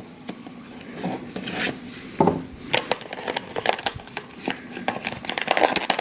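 Small cardboard toy box with a clear plastic window being handled and turned in the hands: light crinkles, taps and clicks, busier in the second half.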